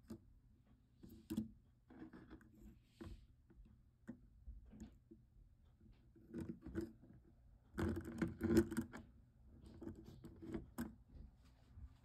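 OCZ DDR memory modules with copper heat spreaders being handled on a tabletop: scattered light clicks and scraping as the sticks are set down and slid against each other, busiest about eight seconds in.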